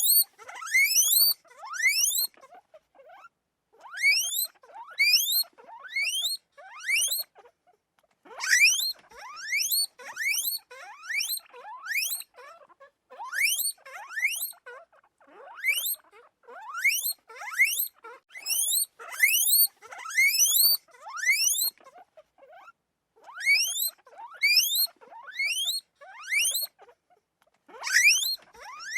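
An animal calling in quick rising whistled chirps, several a second, in bouts of a second or two with short pauses between.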